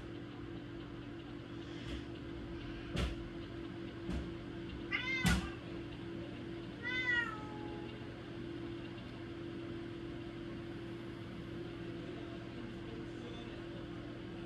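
A cat meowing twice, short calls about five and seven seconds in, over a steady low hum, with a few sharp knocks, the loudest just after the first meow.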